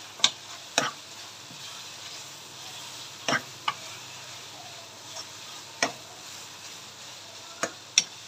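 Tomato qeema (minced meat) sizzling in a pan as it is stirred, with a spoon knocking sharply against the pan about seven times.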